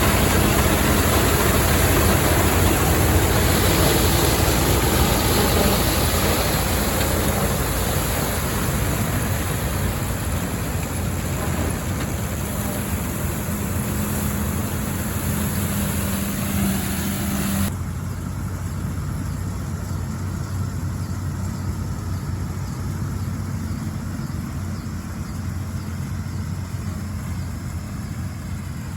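Allis-Chalmers WD45 tractor engine running steadily with the All-Crop 72 combine's machinery, a broad mechanical rattle over the engine's hum. About eighteen seconds in, the high rattle stops abruptly and the engine goes on a little quieter.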